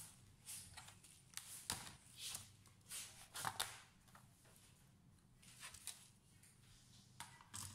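Plastic bottom cover of a Dell Inspiron 3511 laptop being pried off by hand: a string of sharp clicks and scratchy snaps as its edge clips release, then quieter rustling as the panel is lifted away, with a few more clicks near the end.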